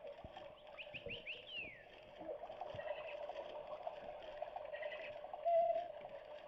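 Battery-operated toy bird chirping: a quick run of rising chirps ending in one falling whistle about a second in, over a steady faint hum.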